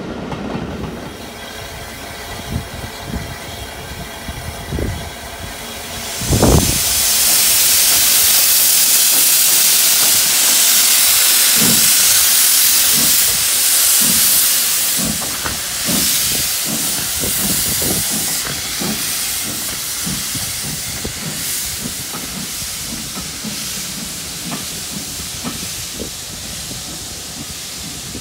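A passing train's coaches rumbling along the track, then the Southern Railway S15 4-6-0 No. 847 steam locomotive starting away with a loud hiss of steam from its open cylinder drain cocks. Slow exhaust chuffs, about one a second, gradually quicken as the hiss eases off.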